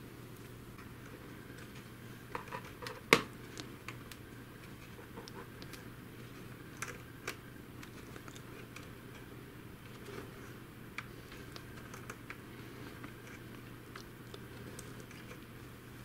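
Faint scattered clicks and scratches of fingers picking dust and hair out of a robot vacuum's side-brush mount on its plastic underside, with one sharper click about three seconds in. A low steady hum runs underneath.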